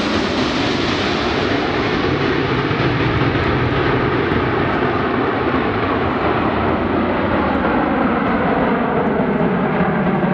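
Jet noise from a formation of Aermacchi MB-339 jet trainers, each with a single Rolls-Royce Viper turbojet, flying away from the listener. The noise stays loud and steady, slowly losing its high hiss, with slow sweeping phasing in the tone.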